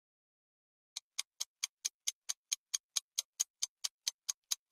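Clock-like ticking sound effect of a quiz countdown timer, quick and even at about four and a half ticks a second, starting about a second in.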